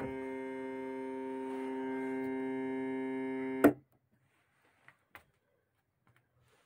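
ARP Pro/DGX digital synthesizer holding one steady note rich in harmonics, which cuts off with a sharp click about three and a half seconds in. After it, a few faint clicks.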